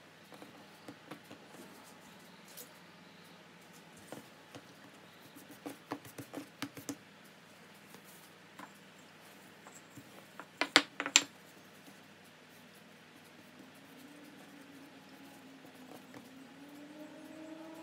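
Light taps and clicks of hands working bread dough on a floured worktop, with a wooden rolling pin at hand. A quick run of four sharper clicks comes a little past halfway. Near the end a faint tone slowly rises.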